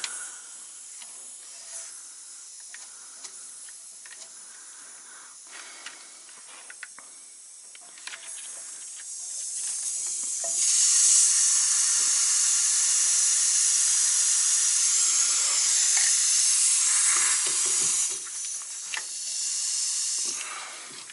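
Compressed air hissing out of a semi truck's air tank as it is drained. A faint hiss with a few small clicks at first, then the air swells into a loud, steady rush about eight to ten seconds in, drops off, and comes back in a shorter burst near the end.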